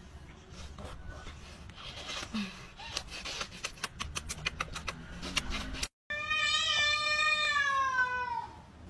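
A string of quick kissing smacks, then one long drawn-out meow from a cat wearing a cone collar, dropping in pitch as it ends.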